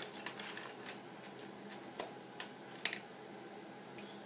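A few scattered light clicks and taps of small hard objects, irregular and about half a second to a second apart, the sharpest one a little before three seconds in.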